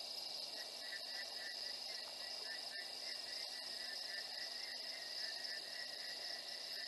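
Night chorus of crickets and other insects: a steady high-pitched trill with a pulsing chirp lower down, over a faint steady hiss.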